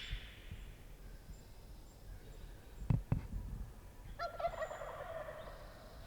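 Wild turkey gobbling at a distance about four seconds in: one rapid, rattling gobble lasting about a second and a half. A soft thump comes about three seconds in.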